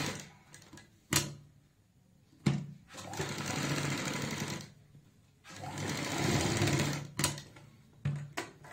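Sewing machine stitching a fabric strip, in two steady runs of about two seconds each, with short sharp clicks before, between and after them.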